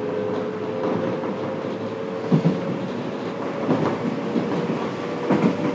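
Running noise heard inside a Fukuoka City Subway 1000N series car under way: a steady rumble with a two-note tone held throughout, and three clacks of the wheels over rail joints about a second and a half apart.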